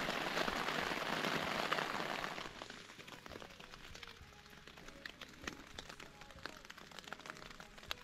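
Heavy rain pattering on a nylon tent. About two and a half seconds in it drops away to a quiet background with scattered single drips.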